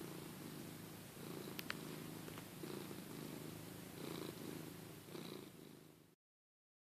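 Domestic cat purring, the purr swelling and easing about once a second with its breathing, with a brief sharp click about a second and a half in. The sound cuts off abruptly near the end.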